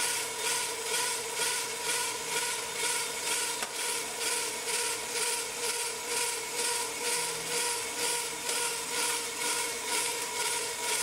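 On-car brake lathe spinning a brake rotor while its cutting bits skim both faces, a steady machine whine with a regular pulsing as the rotor turns.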